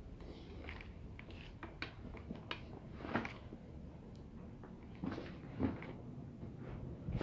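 Footsteps crunching and scuffing on a dry, gravelly dirt floor: irregular light crunches, with a few louder steps from about three seconds in, over a low steady rumble.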